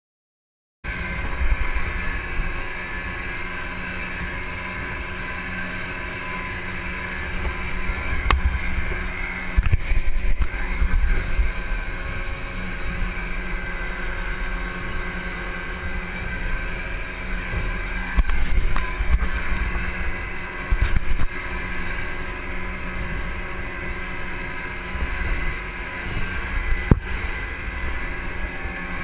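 Two outboard motors running steadily at full speed on a small boat, a constant engine drone starting about a second in. Wind buffets the microphone in irregular low gusts throughout.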